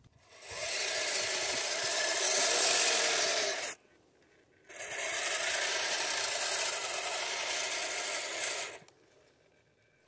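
Kyosho Blizzard RC snow tractor driving on snow, its twin Traxxas Titan 380 electric motors and geartrain whining as the rubber tracks run. It goes in two runs of about three and four seconds with a short stop between.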